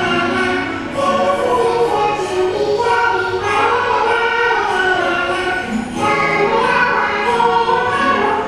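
A choir singing to music.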